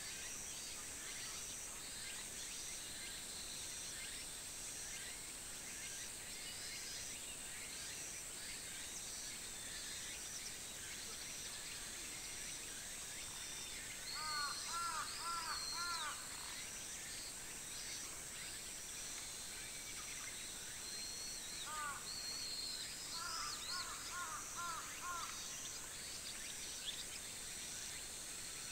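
Crows cawing in two runs of several caws, one about halfway through and one a few seconds before the end. Underneath is a steady high-pitched insect drone, with a few small-bird chirps.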